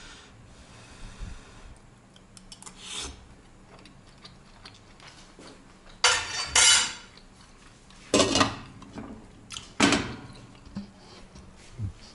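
Cookware being handled: a metal utensil scraping and clattering against a frying pan and a pot. It comes in three loud bursts about two seconds apart, with a fainter clink about three seconds in.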